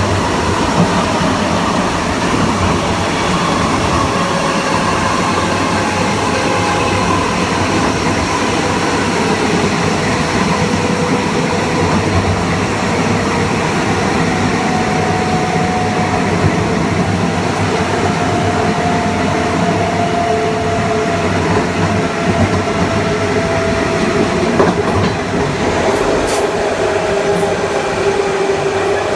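Kawasaki M9 electric multiple-unit train heard on board, running at speed with a steady rumble of wheels on rail. The whine of its Mitsubishi IGBT-VVVF inverter and AC traction motors carries a few tones that drift slowly lower. A few sharp ticks come near the end.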